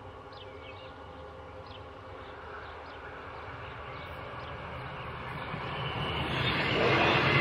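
An electric commuter train approaching the level crossing, its rumble growing steadily louder from about four seconds in and loud near the end. Before that, a steady warning tone from the lowered crossing sounds, with a few bird chirps over it.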